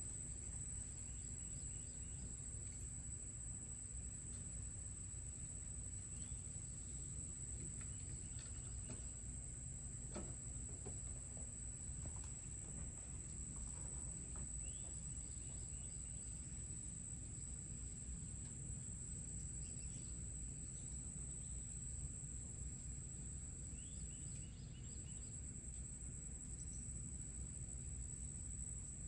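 A steady, high-pitched drone of summer insects that never breaks, over a low background rumble, with a few faint short chirps.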